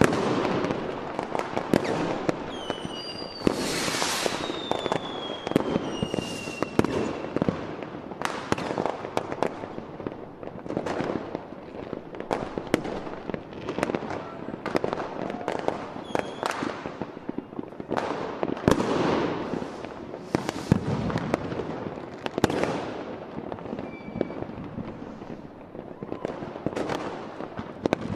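Aerial fireworks display: a rapid, irregular run of shell bursts and crackling reports that goes on throughout. A few whistles falling in pitch sound between about three and seven seconds in.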